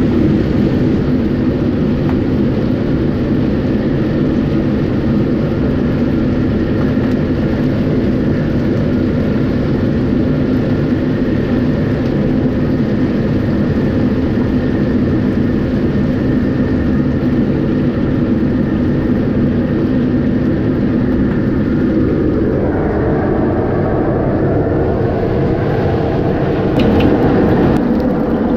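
Steady loud roar of a restaurant kitchen's gas burners and extractor fan running, with a change in tone about 22 seconds in and a few sharp metallic clinks near the end.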